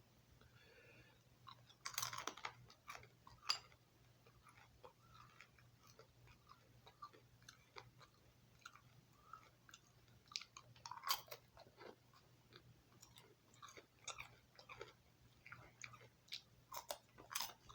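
A person chewing and crunching cotton-candy-flavored gourmet popcorn close to the microphone: faint, irregular crunches, with louder bites about two seconds in, around eleven seconds and near the end.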